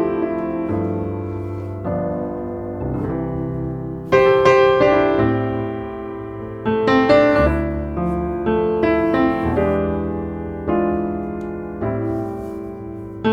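Background piano music: slow chords struck and left to fade, with a louder chord about four seconds in and again near seven and twelve seconds.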